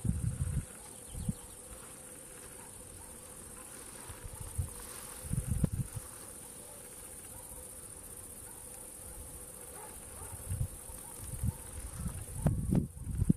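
Insects chirring steadily and high-pitched in the summer grass and field, with a few short low rumbles on the microphone about five seconds in and near the end.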